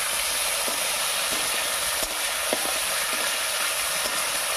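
Prawns coated in turmeric and salt sizzling in hot mustard oil in a karahi, a steady frying hiss, with a few light strokes of a metal spatula stirring them.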